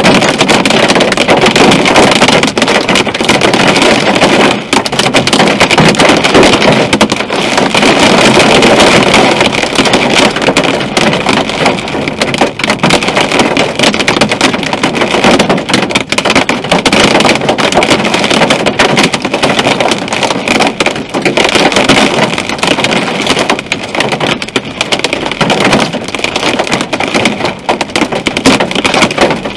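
Hail and heavy rain pelting a moving car: a loud, dense clatter of countless small impacts.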